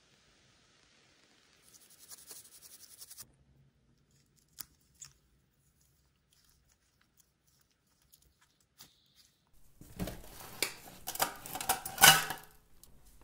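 Close-miked handling and cleaning sounds from a computer being worked on: a short hiss about two seconds in, a few scattered small clicks, then about three seconds of dense crackling and scraping near the end, the loudest part.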